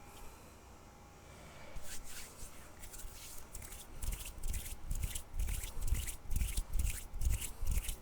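Hands rubbing and brushing close to the microphone: after a quiet start, a run of quick irregular rustling strokes with soft thumps, two or three a second.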